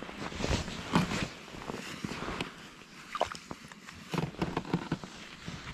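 Rustling of heavy winter clothing and handling noise as an ice angler hauls a small fish up through the ice hole, with a series of sharp knocks and slaps as the fish comes out onto the snow about four seconds in.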